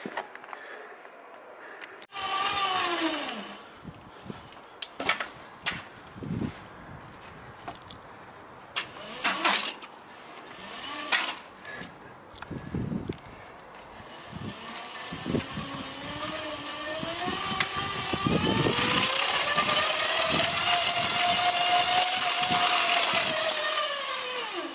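Bicycle on training rollers: the roller drums and tyres whir, rising in pitch as the rider spins up, holding steady at speed, then winding down near the end, with scattered clicks and knocks from the bike and rollers.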